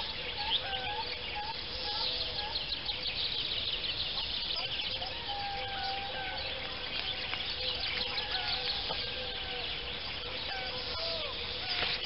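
Birds calling in chorus: many short whistled and wavering notes over a dense high twittering, continuous throughout.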